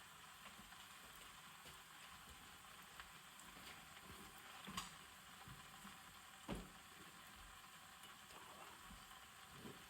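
Banana slices frying in hot oil, a faint steady sizzle with a couple of small clicks partway through.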